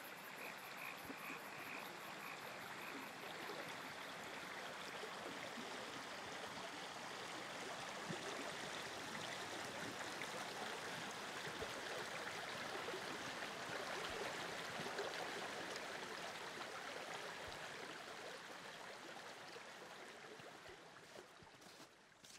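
A steady rushing noise, like running water, that swells toward the middle and fades away near the end.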